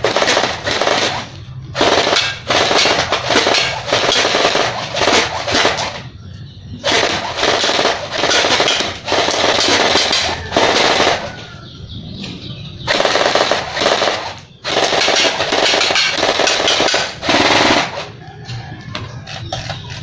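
M416-style airsoft rifle, a D'cobra spring gun converted to an electric gearbox (AEG), firing on full auto in about five long bursts with short pauses between them. The firing stops near the end.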